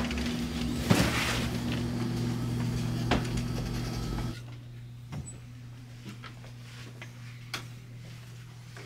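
Room tone with a steady low electrical hum and a few scattered knocks. About four seconds in, the background drops abruptly to a quieter room with the hum fainter.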